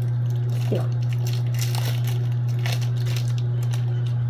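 Trading cards being handled and flicked through by hand, a run of light rustles and clicks, over a steady low hum that is the loudest thing throughout.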